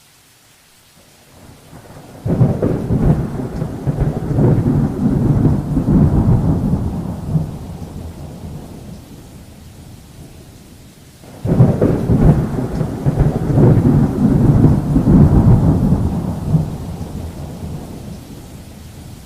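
Two long rolls of thunder over rain. The first breaks suddenly about two seconds in and rumbles away over several seconds; the second breaks about halfway through and fades toward the end, with the rain's hiss underneath.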